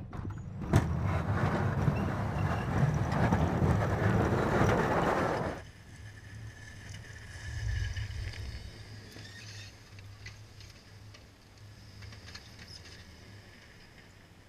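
2009 Chevrolet Silverado 2500HD with a Western MVP3 V-plow running while plowing snow. A loud rush of noise over the engine for about five seconds, then it drops suddenly to a quieter, steady low engine hum.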